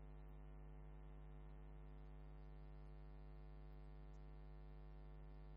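Near silence with a steady electrical hum, a buzz of even, unchanging tones.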